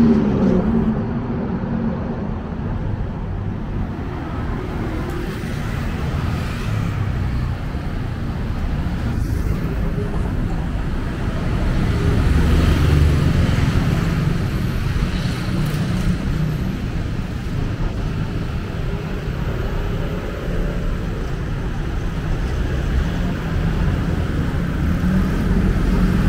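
Steady city road traffic: a continuous low rumble of engines and tyres from passing cars, swelling about twelve seconds in.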